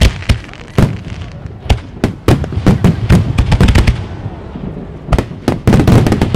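Aerial firework shells bursting overhead: a rapid run of sharp bangs and booms, thickest about two to three seconds in and again near the end.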